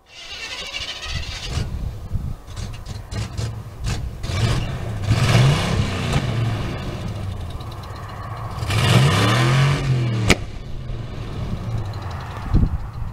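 Chevrolet C10 pickup's engine revving hard while drifting, its pitch climbing and falling back twice, around five and nine seconds in, over the hiss of spinning tyres. A single sharp crack comes just after ten seconds.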